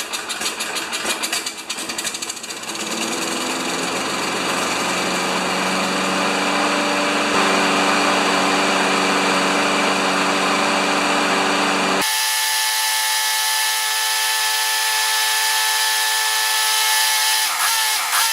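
The riding mower's Briggs & Stratton engine, just started after a tune-up, runs roughly at first and then settles into a steady run, its pitch creeping up as it speeds up. About twelve seconds in, the sound changes abruptly to a thinner, higher-pitched steady drone.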